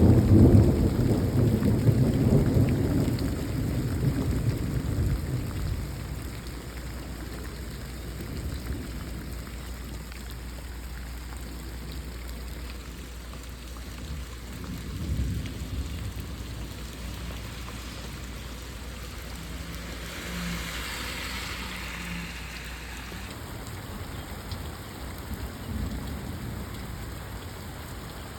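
Thunderstorm: a long roll of thunder at the start, fading away over about five seconds, over a steady downpour of rain. About two-thirds of the way through a louder hiss swells briefly and dies away.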